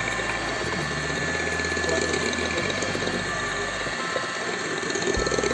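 Electric hand mixer running steadily, its twin beaters churning a batter of butter, sugar and egg yolks, with a steady motor whine.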